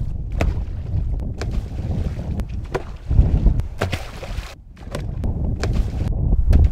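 Wind rumbling on the microphone, with thrown duck decoys splashing down into pond water. The splashes are loudest a little after three seconds in and again near the end.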